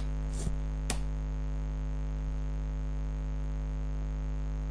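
Steady electrical mains hum with a buzzing row of overtones, and two faint clicks about half a second and a second in.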